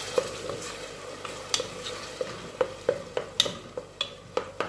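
Wooden spoon stirring grated tomato and chopped onion in a metal pot, knocking lightly against the pot a few times a second, over a faint sizzle of the onions frying in oil.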